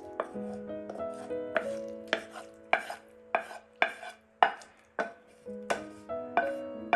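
A knife chopping on a cutting board in quick, uneven strokes, about two or three a second, over soft background music.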